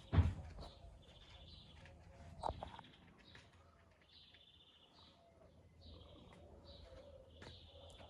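Small birds chirping, repeated short high notes about once a second. A loud thump comes just after the start and a smaller knock about two and a half seconds in.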